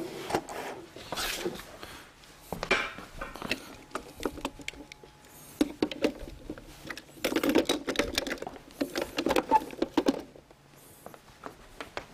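Handling noises on a desk: a run of irregular clicks and light knocks with bursts of rustling, as objects are moved and set down.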